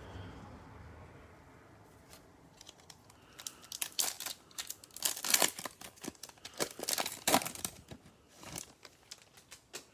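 Plastic wrapper of a Bowman baseball card pack crinkling and tearing as it is opened by hand: a run of sharp crackles that starts a couple of seconds in and is loudest in the middle.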